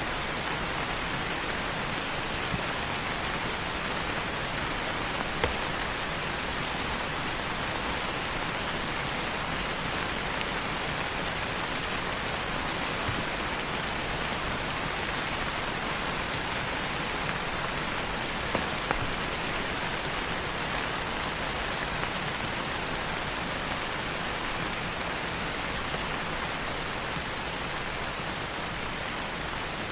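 Steady rain falling on leaves, an even hiss with a few louder individual drops now and then.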